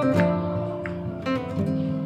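Acoustic guitar music, chords strummed with a few sharp attacks.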